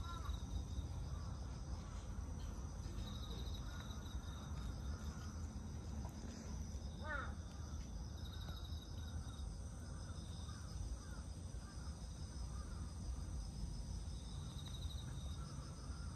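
Insects chirping outdoors in short pulsing trains every few seconds over a steady high insect whine, with a low steady rumble underneath. A single rising bird call comes about seven seconds in.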